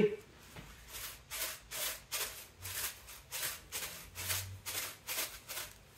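Coarse Montreal chicken seasoning shaken from a shaker jar over chicken thighs: a regular run of short rattling hisses, about two and a half shakes a second, starting about a second in.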